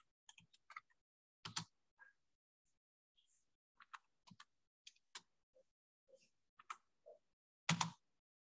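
Computer keyboard typing: faint, irregular key clicks, with a louder click near the end.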